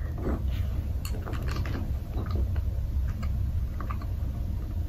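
Two people chewing jelly beans with their mouths closed: soft, scattered wet clicks and smacks over a steady low hum.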